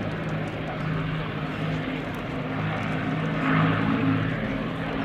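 Avro Lancaster's four Rolls-Royce Merlin V12 piston engines droning steadily as the bomber flies overhead, swelling a little louder about three and a half seconds in.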